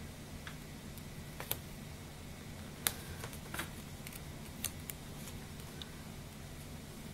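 Paper stickers being handled, peeled and pressed onto a planner page: a handful of small, scattered clicks and taps over a low, steady room hum.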